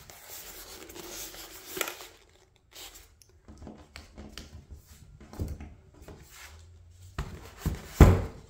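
Polystyrene foam insert and cardboard box being handled: a scraping rub in the first two seconds as the foam slides against the box, then scattered knocks and paper rustles, and a loud thump about eight seconds in as the foam block is set down on a wooden table.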